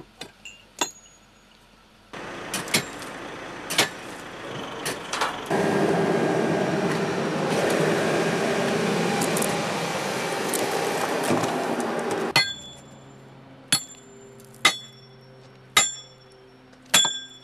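Railway track maintenance work on steel track hardware. It opens with a few light metal clinks, then has several seconds of loud, steady machine noise, then four sharp, ringing strikes of a hammer on steel spikes or tie plates, about a second apart.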